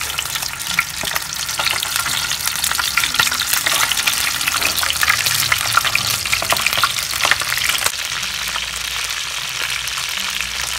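Steamed chicken wings on bamboo skewers shallow-frying in hot cooking oil in a pan: steady sizzling with many sharp crackling pops, the crackle thinning out a little near the end.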